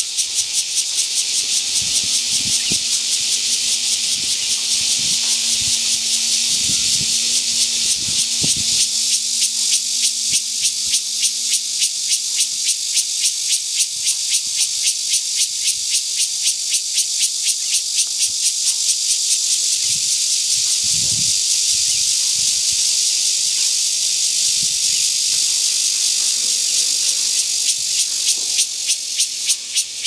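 Male cicada singing: a loud, shrill buzz made of rapid, evenly repeating pulses, holding steady.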